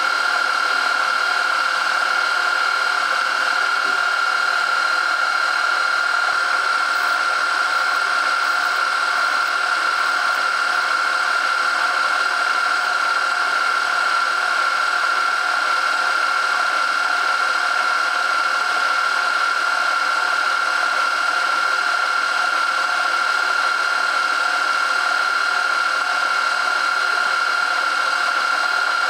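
Small milling machine running with a steady whine as an end mill takes a clean-up cut along the outside faces of a small metal part held in a vice.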